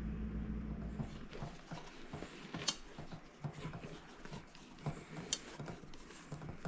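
Scattered light clinks and taps of kitchen bowls and utensils being handled. A steady low hum stops about a second in.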